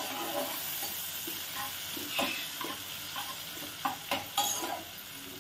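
Sliced onions sizzling in hot oil in a pot while a metal spatula stirs them, with a run of short scrapes and knocks against the pot, the strongest about two seconds in and around four seconds in. The onions are being fried until they brown.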